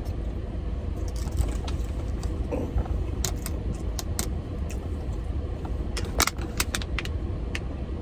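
Steady low vehicle rumble under a string of short sharp clicks and crinkles from handling a takeout food container while eating, the loudest a few seconds in and again about six seconds in.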